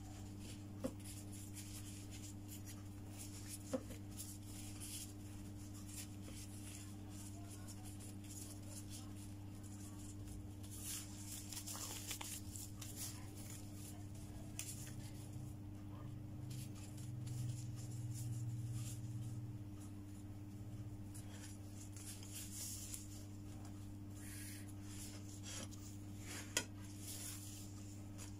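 Soft rustling and rubbing of gloved hands handling and rolling thin lumpia wrappers, with a few light clicks, over a steady low hum.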